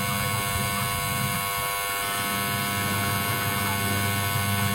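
Washing machine wash motor running with a steady low hum, driven by a semi-automatic wash timer. It stops briefly about a second and a half in and starts again, as the timer reverses the agitator.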